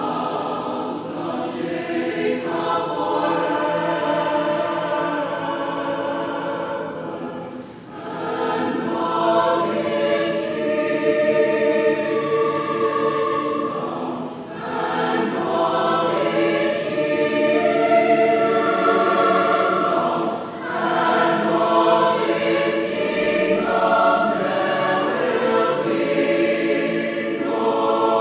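Mixed choir singing a sacred setting in long sustained phrases, 'and He will reign over the house of Jacob forever' and then 'and of His kingdom there will be no end', with brief breaks between phrases.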